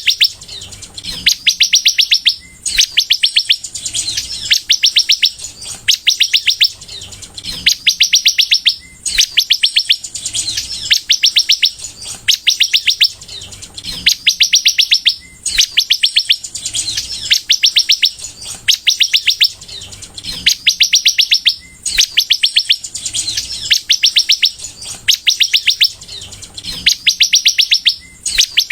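Caged sunbird (kolibri) singing in full song: rapid, high-pitched trilled phrases of about a second each, repeated every second or two.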